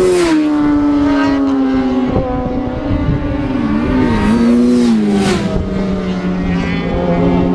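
Several racing motorcycle engines at high revs, held steady with overlapping pitches. Their pitch dips and climbs again a few seconds in, and a loud whoosh swells up about five seconds in.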